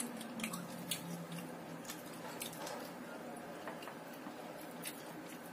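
Faint, irregular crisp clicks and crunches of someone chewing crispy breaded fried tempe sticks.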